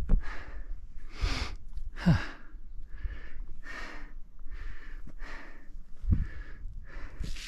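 A climber's hard breathing close to the microphone, about ten loud breaths in and out in quick succession, from the effort of scrambling up steep rock. A few dull low thumps come with it, loudest about two seconds and six seconds in.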